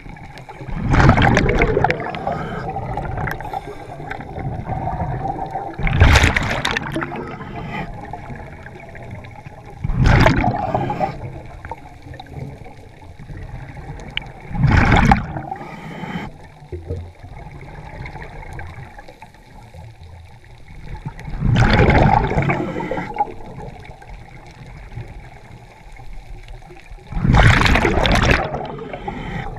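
Scuba regulator exhalations heard underwater: six loud rushes of bubbles, each about a second long and spaced four to six seconds apart at a breathing pace, with a quieter gurgling wash between them.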